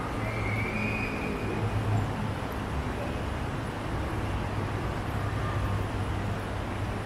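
Steady low rumble with an even hiss of background noise, unchanging throughout, with a faint brief high tone in the first second or so.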